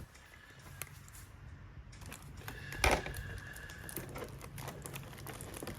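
Plastic packaging trays being handled: scattered light clicks and taps, with one louder knock about three seconds in.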